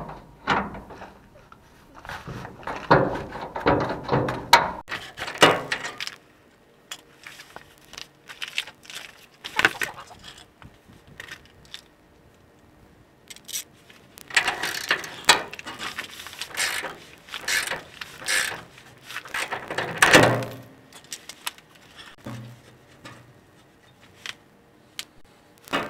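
Hand tools working on a pickup's leaf-spring hardware: spells of metallic clicking and clanking, with quieter pauses between them.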